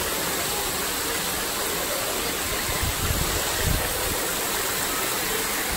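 Steady rushing and splashing of water fountain jets arcing into the pool beneath the ride's elephant vehicles, with a couple of brief low thumps about three seconds in.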